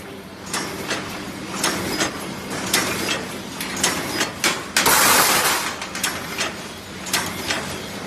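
Paper cup forming machine running, with a rapid, uneven clatter of mechanical clicks and knocks over a steady hum. A loud hiss of air lasting under a second comes about five seconds in.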